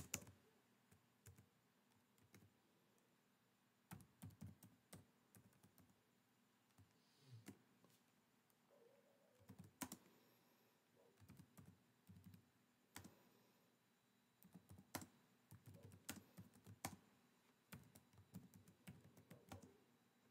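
Faint computer keyboard typing in short bursts of key clicks separated by pauses of a second or more, as text is entered.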